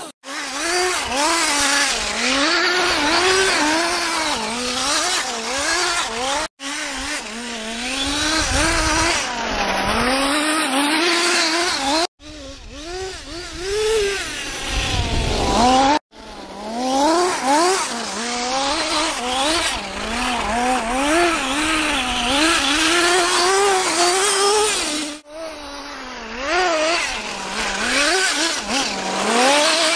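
Kyosho DRT's GXR18 nitro engine revving up and down over and over as the radio-controlled truck slides about, its pitch rising and falling about once every second or two. It runs a little rough now and then, which the owner puts down to a damp air filter. The sound breaks off abruptly a few times.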